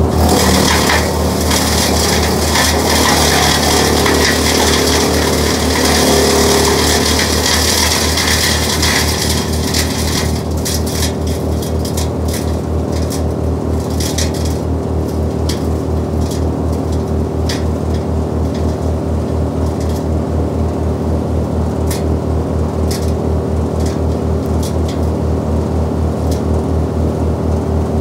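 Först Traxion tracked wood chipper with its engine running steadily, chewing up a load of orchard prunings with loud crackling and grinding for about the first ten seconds. After that the chipper runs on with only scattered sharp cracks of wood.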